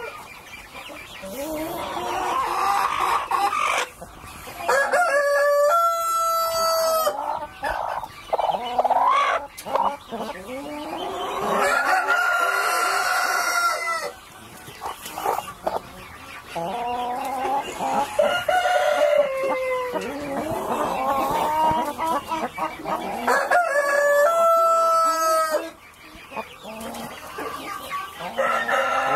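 Brahma hens clucking and calling, with two long crows, one about five seconds in and another near the end.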